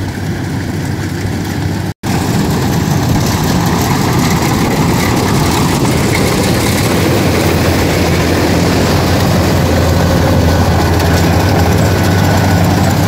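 Kubota DC-105X rice combine harvester's diesel engine running steadily at working speed while the machine cuts rice, a constant low hum with its threshing machinery. The sound drops out for an instant about two seconds in, then carries on.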